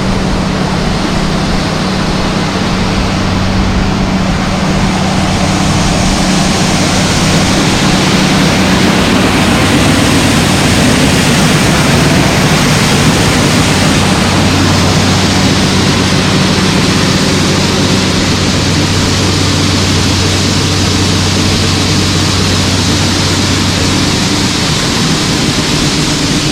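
Grain-bin unloading equipment running steadily as soybeans are unloaded into the bin: a continuous rushing hiss over a low machinery hum.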